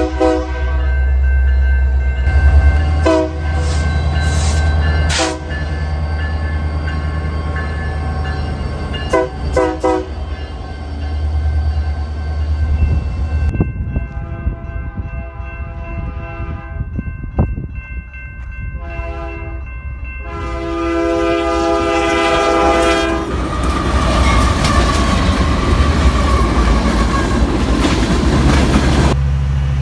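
Nathan Airchime K3LA five-chime horns on diesel freight locomotives. First a BNSF GP60M sounds several short blasts over a heavy diesel rumble. About 14 seconds in, a Union Pacific AC4400CW sounds three longer blasts, followed by the rushing rattle of the train going by.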